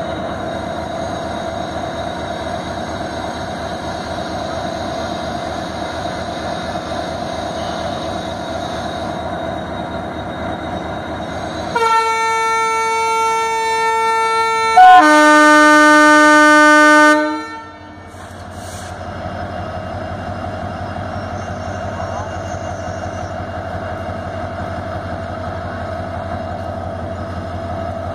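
EMD WDP-4D diesel locomotive's two-stroke V16 engine running steadily. About twelve seconds in a locomotive horn sounds for about six seconds in two parts, the second louder and lower. After the horn the engine runs with a stronger low sound as the locomotive pulls away.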